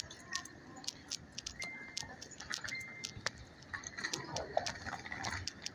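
Irregular sharp clicks and taps of a group walking on a hard, polished floor, footsteps and jostling bags, a few per second. Two brief high beeps about two and three seconds in, and faint voices near the end.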